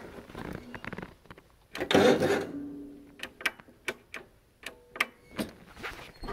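John Deere GT245 lawn tractor's starter cranks briefly, about two seconds in, and the tractor goes dead, leaving a short hum and scattered light clicks. The owner suspects too little charge in the battery, or a safety interlock cutting the start circuit.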